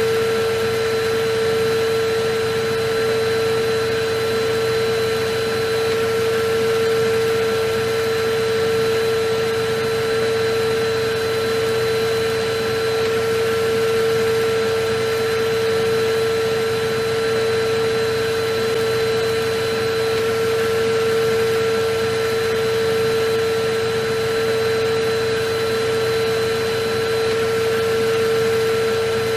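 Electric vacuum cleaner running steadily: a constant motor whine over an even rushing hiss, with no change in speed.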